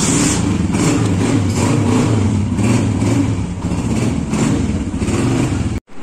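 Honda motorcycle's single-cylinder engine starting up suddenly and running in neutral, its sound swelling about once a second as it is revved lightly; it cuts off abruptly near the end.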